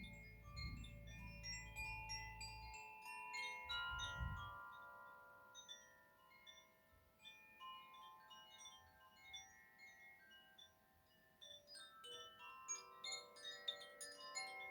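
Koshi bamboo wind chimes ringing: many overlapping, softly struck bell-like tones that thin out and fade in the middle, then pick up again with fresh strikes near the end. A low rumble sits under the chimes in the first few seconds.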